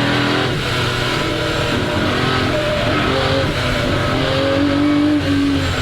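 1961 Ferrari 250 GT SWB's Colombo V12 engine revving, its pitch climbing and then dropping back several times.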